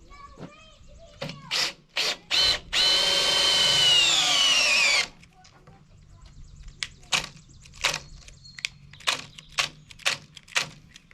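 Cordless drill boring into timber for log screws: two short trigger blips, then a run of about two and a half seconds whose pitch sinks as the bit bites in and loads the motor, before it stops abruptly. A rapid series of short sharp clicks or knocks follows, about two or three a second.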